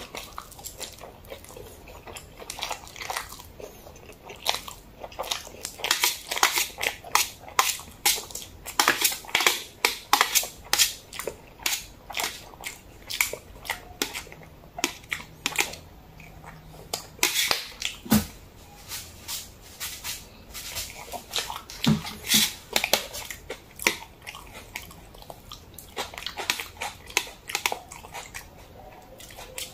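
Close-miked eating of jajangmyeon (black-bean-sauce noodles): slurping noodles and chewing, heard as rapid, irregular mouth clicks and smacks that come in clusters.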